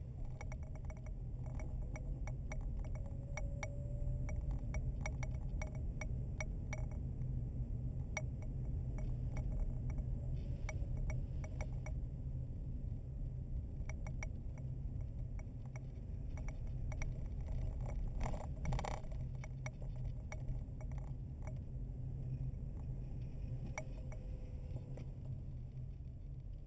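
Car interior noise while driving: a steady low road and engine rumble with frequent small ticks and rattles, and a brief louder rattle about two-thirds of the way through.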